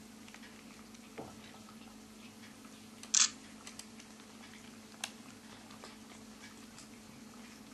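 Cats eating tuna: faint scattered clicks and smacks of chewing and licking over a steady low hum, with one sharp click about three seconds in.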